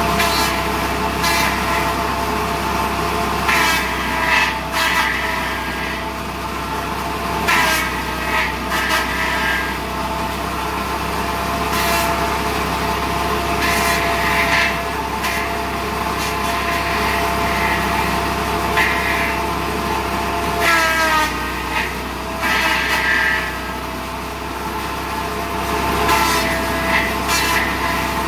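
Motor-driven abacá decorticating (fibre-stripping) machine running steadily with a constant hum. Every few seconds comes a burst of rasping as abacá stalk strips are drawn through the drum to strip out the fibre. Twice, about seven seconds in and again past twenty seconds, the machine's pitch sags briefly under the load.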